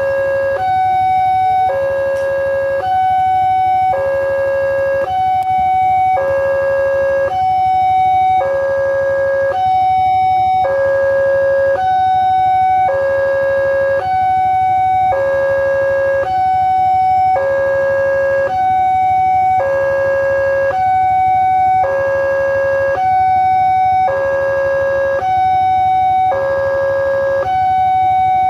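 Railway level-crossing warning alarm sounding its two-tone electronic signal, switching between a lower and a higher tone about once a second, steady and loud: the warning that a train is approaching and the barriers are down.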